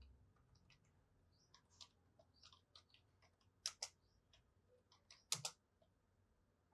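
Faint computer keyboard typing: scattered single keystroke clicks, a few of them louder partway through.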